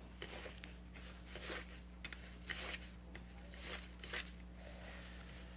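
Sticky slime being squished and pulled, giving small irregular clicks and crackles.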